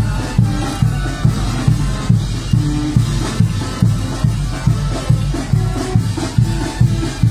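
Band music with a steady drum beat, about two and a half beats a second, and a low bass note on each beat, playing for carnival dancers.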